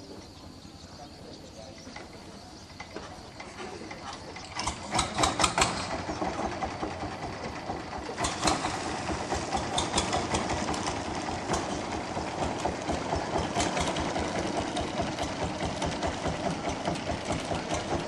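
Long-tail boat engine running with a fast, steady putter, which comes in about four seconds in and then stays loud.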